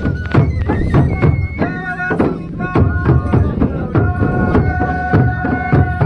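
Traditional Pangwali folk dance music: a steady percussion beat at about three strikes a second under a pitched melody line that holds long steady notes in the second half.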